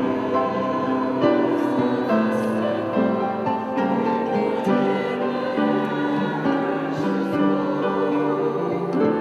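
Mixed choir singing held notes with instrumental accompaniment.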